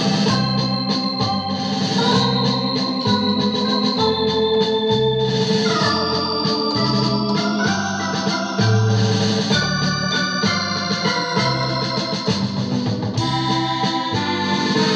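Technics KN7000 arranger keyboard playing a tune with an organ sound. Underneath, its accompaniment plays bass notes and a drum beat in a steady, even rhythm.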